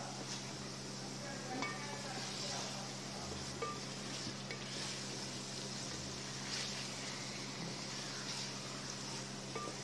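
Chicken pieces frying in oil and onion-tomato masala in a pot, sizzling steadily while being stirred and turned with a wooden spoon, the hiss swelling with each stir. A steady low hum runs underneath.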